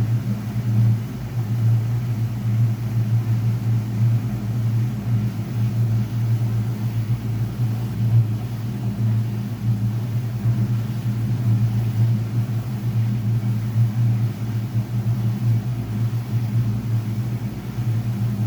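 1958 GE Mobile Maid portable dishwasher running its power rinse: the motor hums steadily while its impeller throws water up and around the tub.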